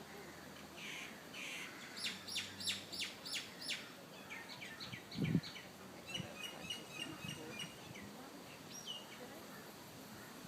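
Birds calling: a run of about six quick, falling notes about two seconds in, then a softer run of five, then a string of short chirps. A low thump about five seconds in is the loudest sound.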